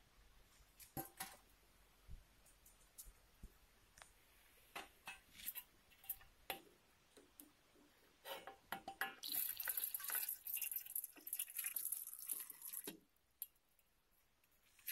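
Scattered small clicks and drips, then water poured into a small aluminium pot of cut plant leaves for about four seconds, stopping abruptly near the end.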